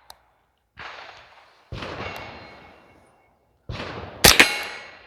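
Rock Island Armory TM22 semi-automatic .22LR rifle firing single shots, each a sudden report with a short echoing tail. The reports come at uneven gaps, and near the end two sharper, louder cracks follow each other quickly.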